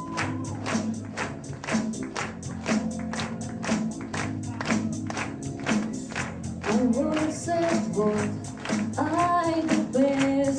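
Live band music with a steady beat of sharp percussion strikes, about three a second, over a bass line; a singing voice comes in about two-thirds of the way through.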